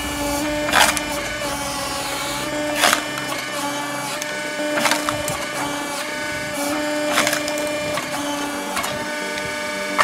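Vertical log splitter's motor running with a steady drone while short rounds of firewood are split, with a sharp crack of splitting wood about every two seconds.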